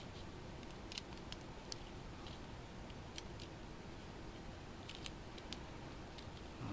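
Faint, irregular small clicks and ticks of small hardware and tools being handled: a box wrench working steel lock nuts onto ball studs of a radio-controlled car, over a steady low room hum.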